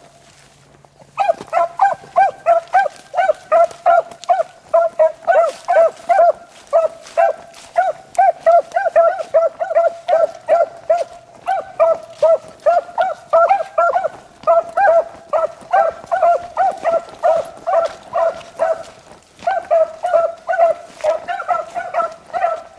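Rabbit-hunting beagles giving voice on a rabbit's track: a steady string of sharp barks, about three a second. It starts about a second in and has a short break near the end.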